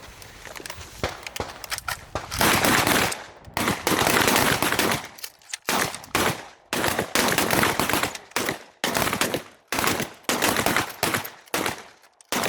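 Shotguns firing from a line of several shooters, each at their own pace: irregular, often overlapping shots, each followed by a ringing tail, coming without pause from about a second in.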